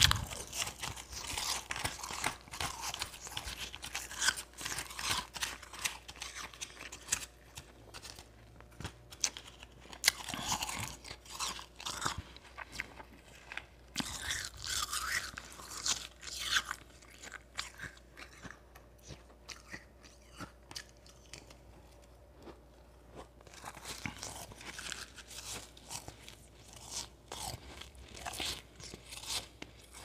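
Close-miked crunching and chewing of a mouthful of powdery ice eaten by the spoonful: runs of crisp crunches that thin out in the middle and pick up again near the end.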